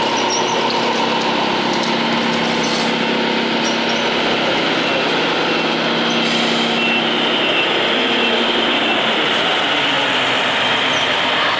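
Simulated truck engine sound from RC model trucks' onboard sound modules, running steadily over a dense, constant background. A held engine tone fades out about seven seconds in.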